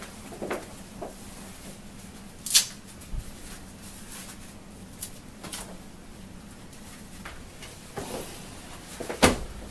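Handling noises: a few sharp knocks and clicks from objects being moved, the loudest about two and a half seconds in. Near the end comes a heavy thud as binders are pushed about on top of a metal filing cabinet.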